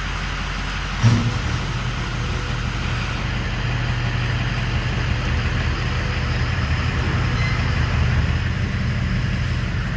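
Freshly rebuilt Ford Power Stroke V8 turbo-diesel running. About a second in there is a thump and the engine note steps up, then holds steady while growing slowly louder.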